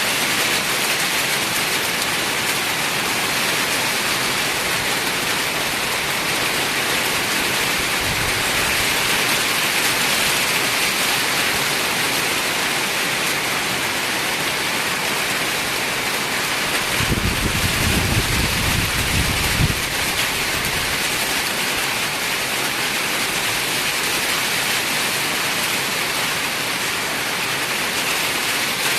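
Steady rain, an even hiss of falling water, with a low rumble lasting a few seconds a little past the middle.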